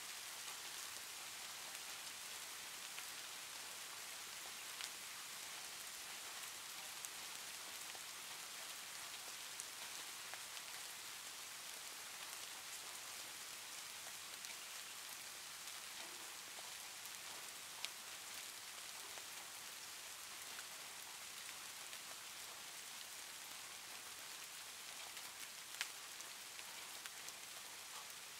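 A steady, faint hiss with a few sharp single clicks, the loudest about two-thirds of the way through.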